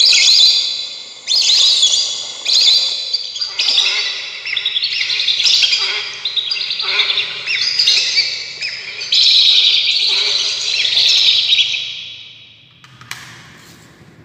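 Recorded bird calls played loudly through a battery-powered hunting bird-caller speaker: rapid, high chirping phrases one after another, fading out about twelve seconds in.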